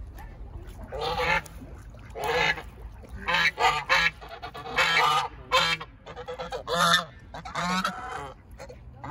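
Domestic geese honking: a string of about nine loud, harsh honks, some coming in quick succession.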